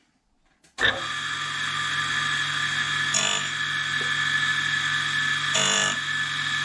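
Belt-driven milling machine switched on about a second in, spinning a grinding wheel on a shop-made grinder attachment; it runs with a steady hum and a high whine, with two brief louder surges.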